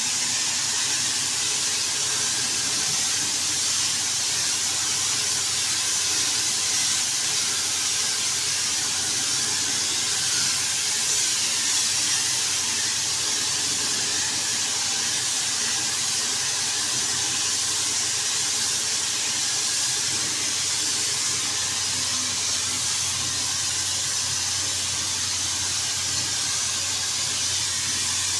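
Compressed-air siphon-feed paint spray gun spraying paint, a steady high-pitched hiss of air and atomised paint without a break.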